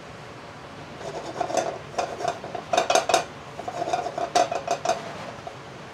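A spatula scraping and knocking against a nonstick frying pan as butter and chopped garlic are stirred, in a string of quick strokes that starts about a second in. The strokes are loudest around three seconds and again around four and a half seconds, and stop about a second before the end.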